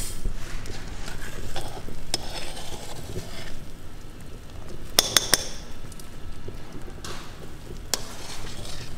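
A pot of meat at the boil bubbling with a steady low hiss while foam is skimmed off with a metal mesh strainer. The strainer clinks against the dishes now and then, with three quick clinks about five seconds in.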